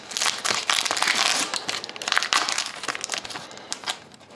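Trading card pack wrapper crinkling as it is handled and opened, a dense run of crackles that eases off near the end.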